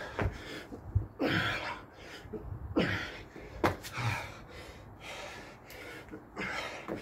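A man breathing hard from exertion, with loud gasping breaths about every second and a half as he does burpees and jump squats. A few sharp thuds from hands and feet landing on paving slabs.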